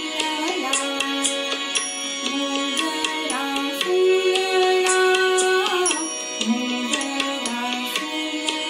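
A woman singing a slow Indian song with tabla accompaniment. She holds one long note from about four seconds in, sliding up in pitch as it ends, while the tabla strokes keep time.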